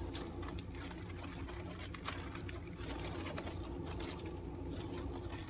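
Soft crinkling and small clicks of a thin plastic bag and necklaces being handled by hand, over a steady low hum.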